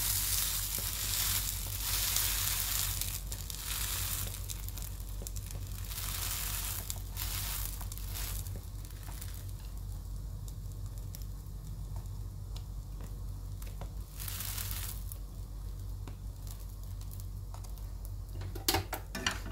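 Bread roll filled with fried egg sizzling in a nonstick frying pan as its crust is crisped, the hiss coming in surges and fading to a quieter sizzle later. A few sharp clicks near the end as chopsticks work the roll against the pan.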